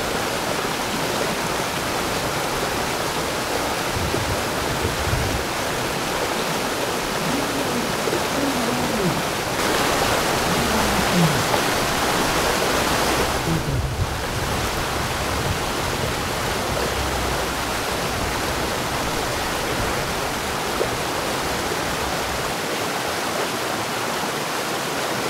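Steady rushing water like a stream, an even hiss spread from low to high. It swells a little about ten seconds in and drops abruptly near fourteen seconds.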